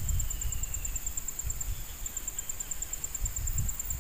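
Insects trilling steadily in a rapid, high-pitched pulse, with a short break near the middle, over an uneven low rumble.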